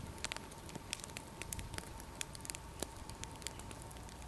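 Wood fire crackling as the firewood catches, with irregular sharp pops and snaps.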